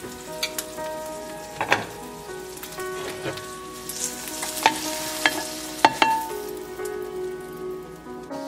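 Fried eggs sizzling in a hot frying pan, with a spatula clicking and scraping against the pan about eight times as the eggs are lifted out onto a plate. Soft music plays underneath.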